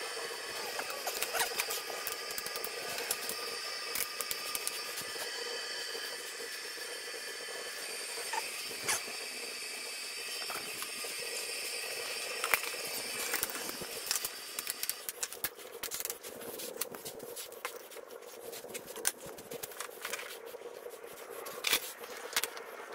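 Fast-forwarded boat-shop work: a quick run of clicks, knocks and clatter from bar clamps and plywood being handled and clamped, over a steady whine and hum. The whine fades about two-thirds of the way through, and the clicks come thicker near the end.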